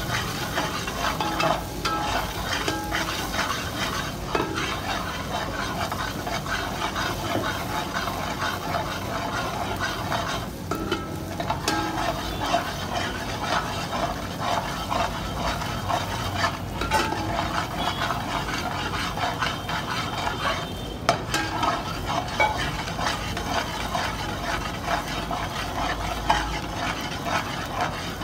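A metal spoon stirring and scraping around a metal pot of onions frying in oil, giving irregular scrapes and clinks over a steady sizzle.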